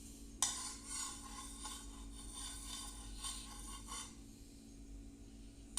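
Chopped onion going into a fry pan of hot oil and garlic: a hissing, scratchy frying noise starts suddenly about half a second in and fades out around four seconds in.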